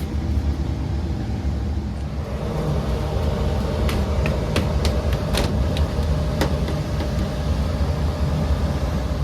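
HVAC system running with a steady mechanical hum. A handful of sharp clicks come about four to six and a half seconds in.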